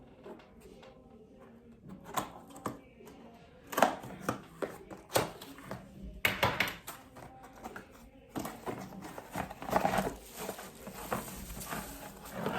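Handling noise from unpacking a small plastic phone tripod: irregular clicks, knocks and rustling of its packaging. A faint background of music and voices runs underneath.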